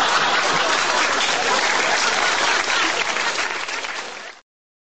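Crowd applause sound effect: dense, steady clapping that fades slightly and then cuts off suddenly near the end.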